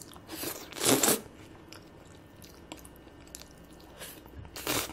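Close-miked slurping and eating of bibimmyeon noodles: two short, loud slurps, one about a second in and one near the end, with faint chewing clicks between them.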